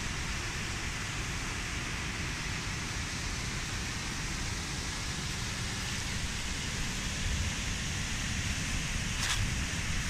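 Waterfall spilling over a weir, a steady rushing hiss of falling water with some low rumble.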